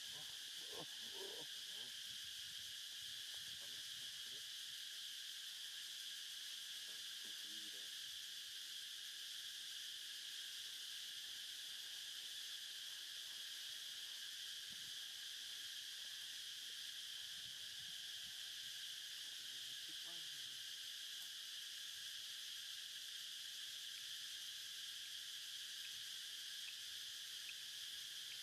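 Steady chorus of insects, a continuous high buzzing drone that never lets up, with a few faint short sounds lower down now and then.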